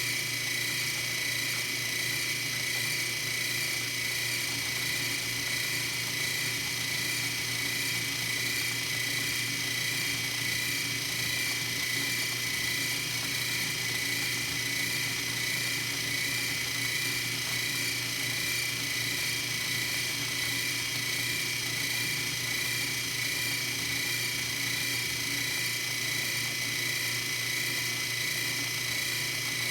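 Metal lathe running at a steady speed while a nut is machined: a constant hum with steady high tones and no change in pitch or level.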